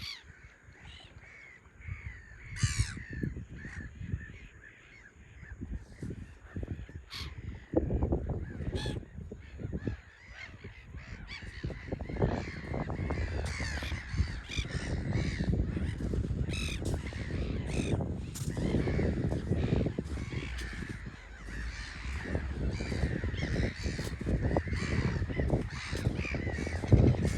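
A flock of gulls calling over and over, many harsh overlapping cries. A low rushing noise swells in from about a third of the way through.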